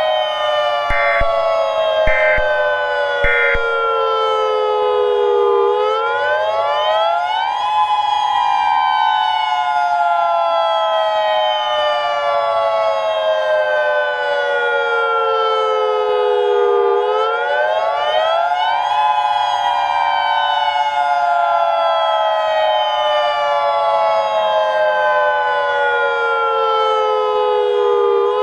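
Tornado warning siren: several overlapping siren tones slowly falling in pitch, then sweeping quickly back up, over and over about every 11 seconds. Near the start, three short electronic bursts a second apart sound over it, like the EAS end-of-message data tones.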